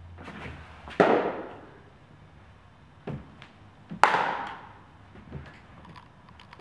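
Two sharp leather pops about three seconds apart, a baseball smacking into a glove about a second in and again near the middle, each followed by a ringing echo off the metal walls and roof, with a softer knock just before the second pop.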